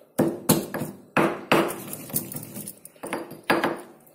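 Pestle pounding edible camphor in a small stone mortar: a run of sharp knocks, five in quick succession, then two more about three seconds in.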